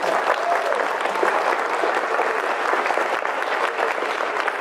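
Audience applauding: many hands clapping at a steady level throughout.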